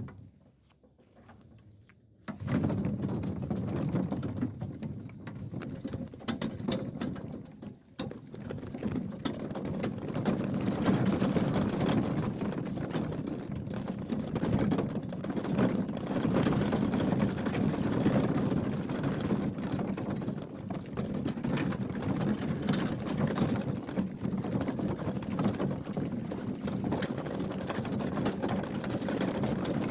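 Continuous rattling and clattering that starts about two seconds in: gear rattling along as it is carried or wheeled on foot.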